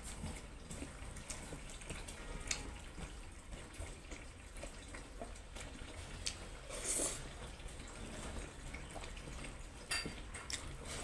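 Close-up eating sounds of rice and pork curry eaten by hand: wet chewing and mouth clicks, with scattered small clicks and a louder wet smack about seven seconds in.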